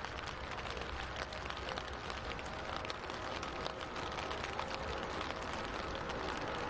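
Distant jet noise from an Airbus A380's Rolls-Royce Trent 900 engines: a steady crackling rumble with a faint whine, slowly growing louder near the end.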